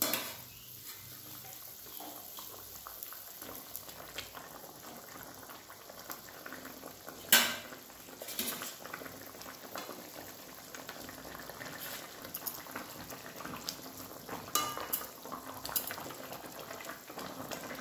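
Thin mustard-and-turmeric fish gravy boiling in a wok, a steady bubbling. Scattered clinks and knocks of a metal spatula and fried fish pieces against the pan, the loudest about seven seconds in.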